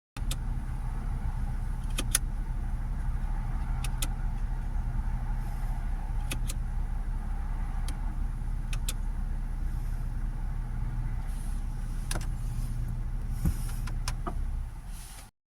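BMW F02 7 Series running with a steady low hum, with scattered light clicks every second or two; the sound cuts off abruptly near the end.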